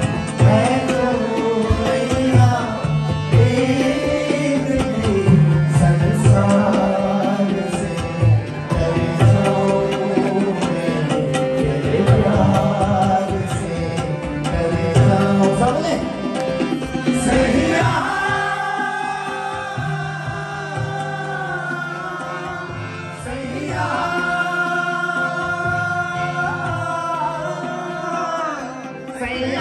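Live male singing with harmonium accompaniment and hand-drum beats. About two-thirds of the way through, the drumming drops back and long held sung notes carry over the harmonium.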